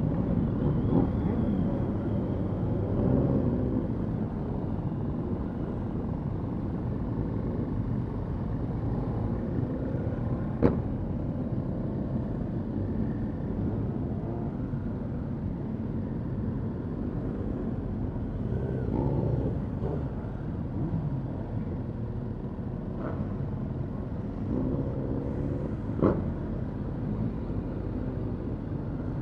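Many motorcycle engines in a large group running and revving as the bikes pull away slowly in low gear, pitch rising and falling as riders blip the throttle. Two short sharp clicks, one about eleven seconds in and another near the end.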